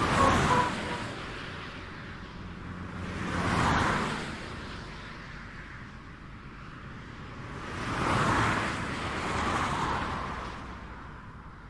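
Highway traffic: vehicles passing the microphone one after another, each rising and fading away, about four passes. The loudest comes right at the start, and the road grows quieter near the end.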